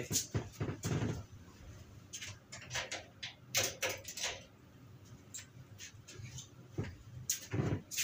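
Scattered faint clicks, knocks and rustles of someone rummaging out of sight for a spare key.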